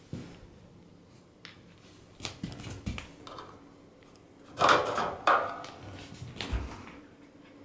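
Wire pet cage rattling and its plastic tray and slatted floor knocking as the door is handled and a cat steps through. Scattered clicks and knocks, with two louder clatters close together a little past halfway.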